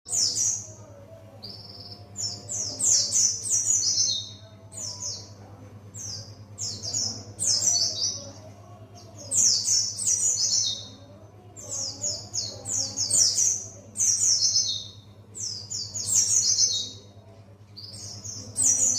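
Buxtoni white-eye singing: a run of short, high, rapid chattering phrases that slide downward, repeated every second or two.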